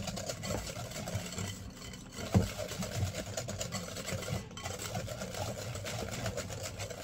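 Wire whisk beating eggs and sugar in a glass bowl: a fast, steady clicking of the whisk's wires against the glass, with one louder knock about two and a half seconds in.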